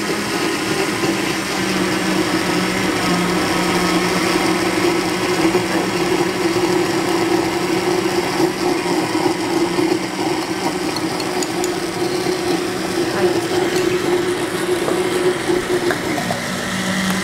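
Countertop blender running steadily, blending a creamy liquid mixture in its glass jar with the lid cap off, then cutting off abruptly at the very end.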